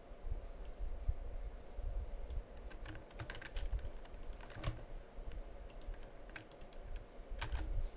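Computer keyboard keys and mouse buttons clicking in scattered short clusters, as text is copied and pasted, over a faint steady hum.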